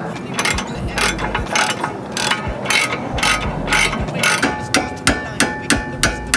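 Hand socket ratchet being worked back and forth on a suspension bolt, its pawl clicking in short strokes about three times a second. From about four seconds in the clicks turn sharper and crisper.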